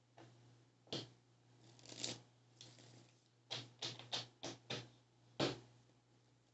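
A deck of tarot cards shuffled by hand: a run of faint, short rustling strokes, coming about three a second from roughly three and a half seconds in.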